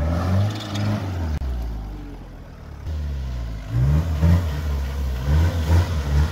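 Mitsubishi Pajero MKII off-road 4x4 engine revved hard in repeated bursts, pitch rising and falling again and again as the truck fights for traction climbing through deep mud ruts.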